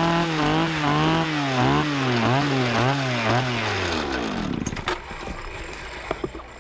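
Gas chainsaw running with its pitch wobbling up and down about twice a second, then shut off about four seconds in, the pitch sliding down as the engine winds to a stop. A few faint knocks follow.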